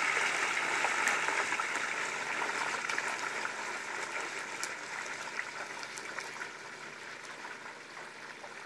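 Hot oil in a propane turkey fryer pot sizzling and bubbling hard around a whole turkey just lowered into it, with scattered crackling pops. The sizzle slowly dies down as the oil settles.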